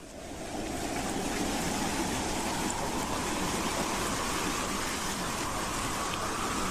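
Howling wind track fading in over the first second, then a steady rushing hiss with a faint whistling tone that slowly rises in pitch.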